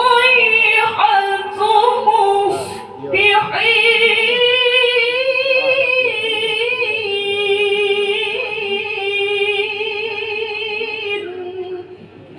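Qur'an recitation: a solo reciter chanting in melodic tajwid style. After a short sung phrase the voice takes a breath and then holds one long, ornamented note for about eight seconds, drops briefly to a lower note near the end, and stops.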